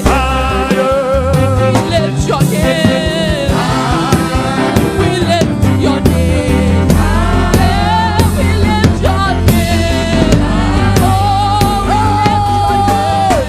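Gospel worship music: singing with vibrato over a band with drums and bass, and a long held sung note near the end.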